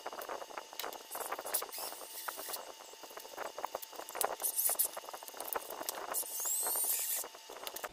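Wltoys 104311 RC crawler rear axle being handled and fitted to the chassis: irregular small clicks, knocks and rattles of parts, with a brief high squeak near the end.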